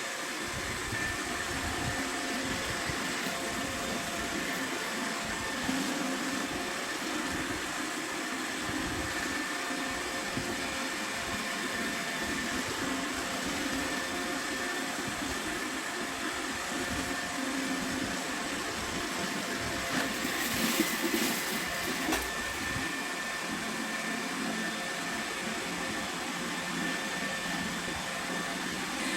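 iRobot Roomba 971 robot vacuum running as it cleans the floor: a steady whirring hum with a faint high whine. There is a short burst of clattering about two-thirds of the way through.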